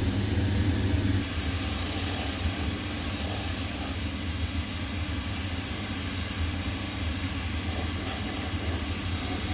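Shoe finishing machine running with a steady motor hum while a leather boot is held against its spinning sanding wheel, the abrasive rasping against the leather.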